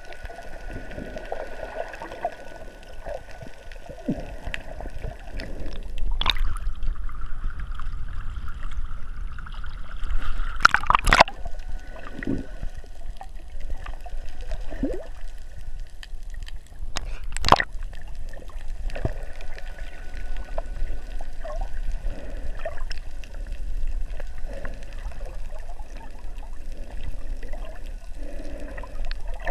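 Muffled water noise from a camera held underwater, with gurgling and three sharp knocks spread through it.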